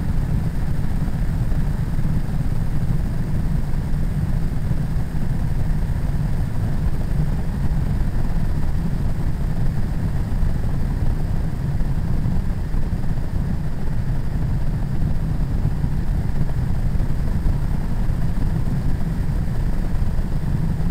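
Ultralight trike's engine and propeller running in steady flight: an even, rough, low drone mixed with rushing air, unchanging throughout.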